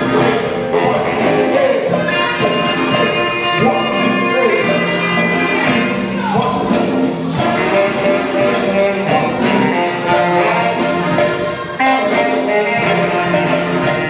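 Live brass band playing: trumpets, saxophones and clarinet over a drum kit and electric guitar.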